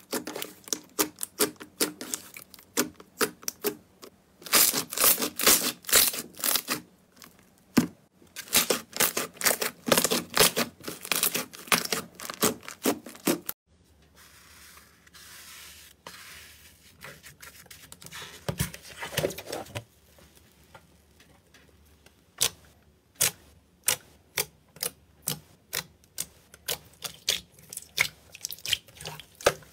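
Slime being squeezed and pressed by hand, giving dense runs of crackling, popping clicks. About 14 s in the sound changes to a softer, hissing squish with only a few pops, followed by slower, separate pops near the end.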